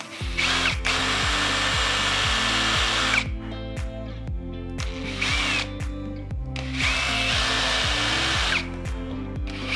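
Power drill with a small metal-drilling bit boring into old wood on either side of a snapped-off nail, to free the nail. It runs in several bursts with short pauses between them.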